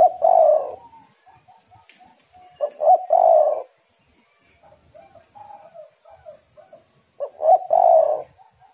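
Spotted dove (tekukur) cooing: three loud phrases a few seconds apart, each a short note followed by a longer coo, with fainter cooing from another dove in between. The uploader gives it as the call of a female in breeding condition.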